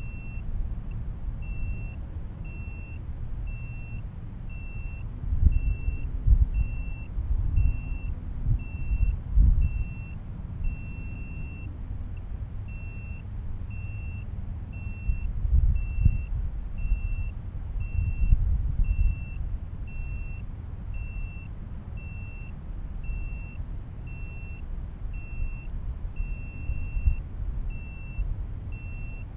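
A downed freestyle quadcopter's buzzer beeping steadily, one short high beep about every second: the lost-drone alarm of a quad lying in the grass. Wind buffets the microphone with a low rumble that gusts up twice.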